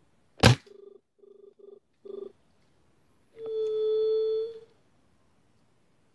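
A single sharp crack of a Jade 5.5 mm spring-piston air rifle firing, its spring weak. It is followed by low dove coos: four short coos, then one long steady hoot about three and a half seconds in.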